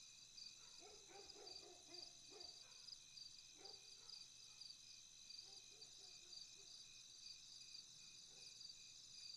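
Faint recorded crickets chirping in a steady, pulsing chorus, with a few short, faint lower-pitched animal calls underneath.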